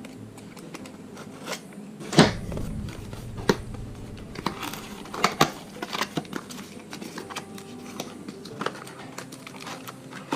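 Packaging being handled by hand while unboxing: scattered clicks and rustles, the loudest a sharp snap about two seconds in.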